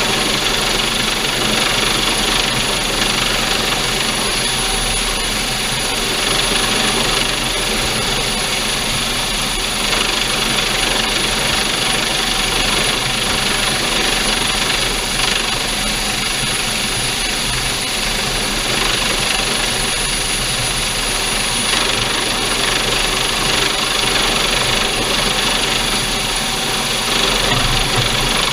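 Coast Guard Dolphin helicopter hovering low overhead: a steady, loud rush of rotor noise and downwash with a constant high turbine whine.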